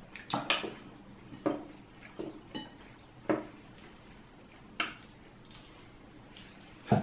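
Knife and fork clinking and scraping on ceramic plates: a series of separate sharp clinks about a second apart, one ringing briefly, with the loudest knock near the end.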